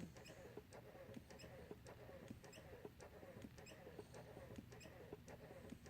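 Tiny, faint snores of a sleeping baby, heard as small squeaky breaths, over soft irregular clicking, a few clicks a second, and a steady low hum from the baby swing.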